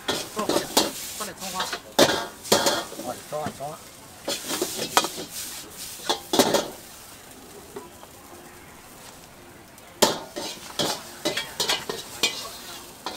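Long metal ladle scraping and clanking against an iron wok as noodles are stir-fried, over the sizzle of frying. The clatter comes in quick flurries, eases to a steadier sizzle for a few seconds, then picks up again near the end as the noodles are scooped out of the wok.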